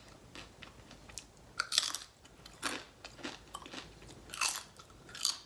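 Tortilla chips being bitten and crunched close to the microphone, in irregular crisp crackles between stretches of chewing, the loudest bite about two seconds in.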